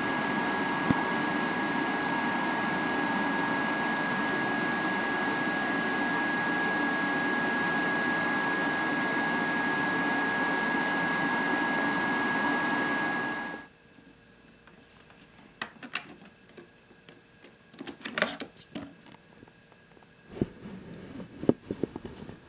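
LG CordZero T9 canister vacuum running with a steady high whine, cutting off suddenly about thirteen seconds in. After that come a few scattered clicks and knocks of plastic parts being handled.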